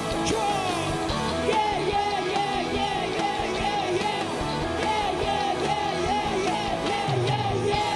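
Live rock band playing, with electric guitar, drums and singing.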